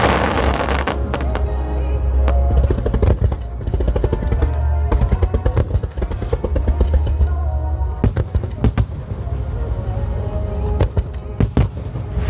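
Fireworks bursting and crackling, with many quick pops and a few sharp cracks near the end, over music playing at the same time.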